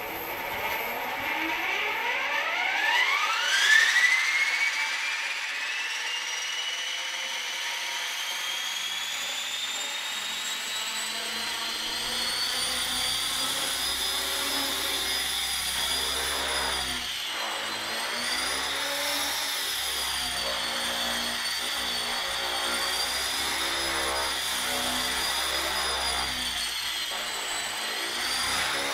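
Align T-Rex 450 Pro electric RC helicopter spooling up. The whine of its brushless motor and gears rises steeply over the first few seconds, then climbs more slowly as the rotor comes up to speed. From about halfway it is in flight, the whine wavering up and down with throttle and pitch changes.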